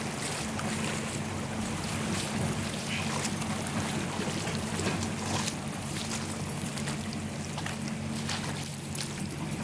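Shallow river water rushing over a rocky bed, with a steady low hum underneath.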